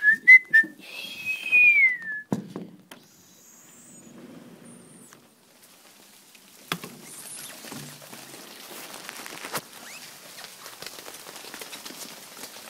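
Ice falling all around, a steady crackling patter of many small ticks that sets in about six seconds in. Near the start there are a few high squeaky chirps and one falling squeal.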